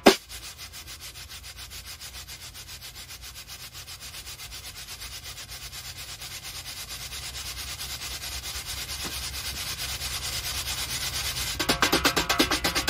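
Wooden-shell snare drum played with wire brushes: a fast, even run of soft brush strokes that slowly grows louder, then turns clearly louder and fuller about a second before the end.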